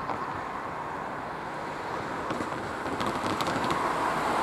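A car approaching along the road, its tyre and engine noise growing steadily louder toward the end, over steady outdoor background noise.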